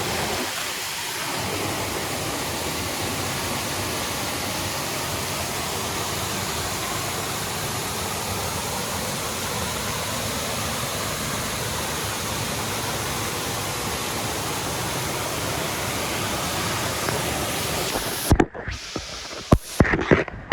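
Steady rushing of a waterfall. Near the end it cuts off suddenly, and a few sharp knocks follow.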